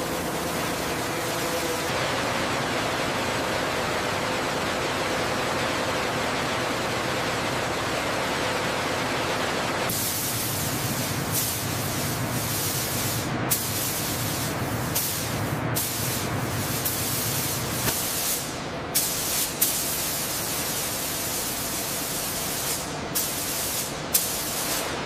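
Random orbital sanders whirring against a helicopter fuselage. About ten seconds in this gives way to compressed-air paint spray guns hissing in long bursts that cut off briefly now and then, with a few short clicks.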